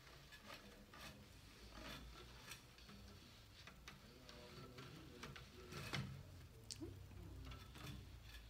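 Faint rustling and irregular light ticks of a fabric rag strip being drawn by hand through the warp threads of a floor loom. One click about six seconds in is a little louder.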